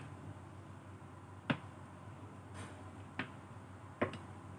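Kitchen tongs clicking and tapping while picking up baked meatballs from a baking pan: a handful of sharp, separate clicks about a second apart, two of them close together near the end.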